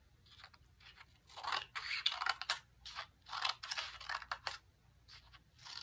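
Small safety scissors cutting a piece of paper: a series of short snips, one or two a second, with brief pauses between them.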